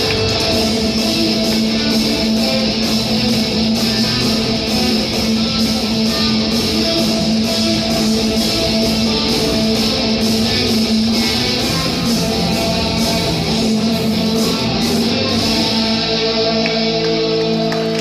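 Live rock band playing an instrumental passage: electric guitar strumming over bass and drums. Near the end the cymbals drop away and the held chords ring on.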